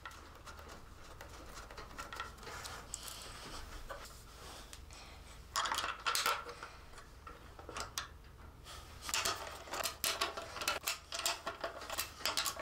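Small metallic clicks and taps of hand tools and bolts as the remaining bolts on a motorcycle tail tidy bracket are fitted and done up, with a cluster of clicks about halfway through and quicker runs of clicks near the end.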